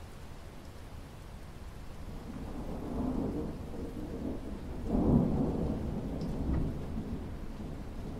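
Steady rain falling on a pool's surface, with a low roll of thunder building about two seconds in, loudest about five seconds in, then easing off.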